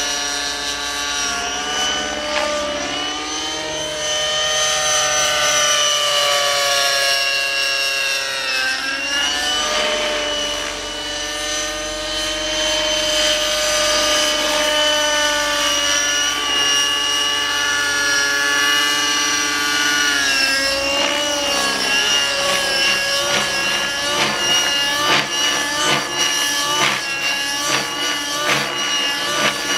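Radio-controlled model helicopter flying, its engine and rotor whine sliding up and down in pitch as it passes and manoeuvres. About two-thirds of the way in the sound turns into a fast, uneven pulsing as the helicopter flips through aerobatics.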